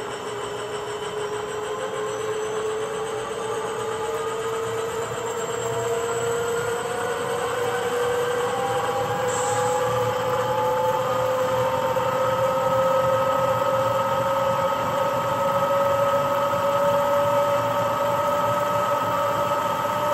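Loksound 5 sound decoder playing a WDG4 diesel locomotive's engine sound through the HO-scale model's small speaker, rising steadily in pitch and getting louder as the throttle is opened.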